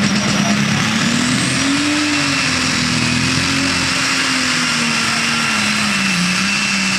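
Turbocharged diesel engine of a pro stock pulling tractor running flat out under load on a pull. The engine note climbs over the first two seconds, then slowly sags, dipping near the end.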